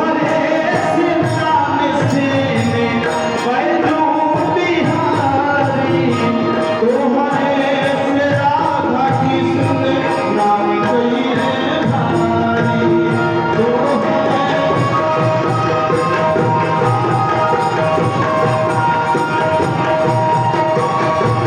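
Live Bhojpuri devotional folk music: a melody that bends in pitch, with a voice in places, over a dense, steady percussion beat. Held steady notes take over in the second half.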